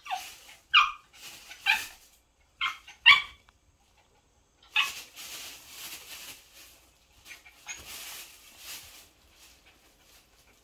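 Small dog giving five short yips or barks in the first three seconds, then a long stretch of crinkly rustling, as of the plastic bag it is nosing into, from about five seconds in.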